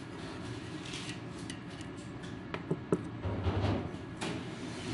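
Loose steel ball bearings being picked out of a bicycle front hub's bearing cup, giving a few scattered small metallic clicks and clinks.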